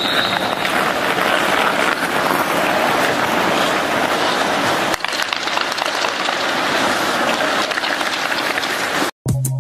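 Dense, steady crackle of many hands clapping, like sustained applause, with a brief high tone at the very start.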